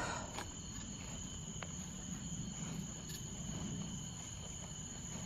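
Night insect chorus of crickets: a steady, high-pitched trilling that runs on unbroken.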